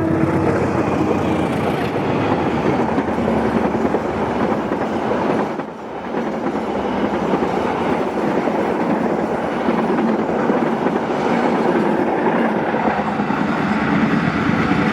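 Indonesian express passenger train running through the station at speed, with a loud, steady rush of wheels on rails and carriages. The noise dips briefly about six seconds in, then carries on.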